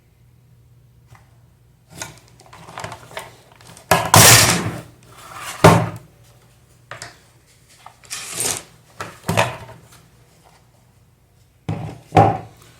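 Knocks, scrapes and rattles of electric-fan parts being handled and taken apart, in a run of separate bursts, the loudest a rough scrape about four seconds in.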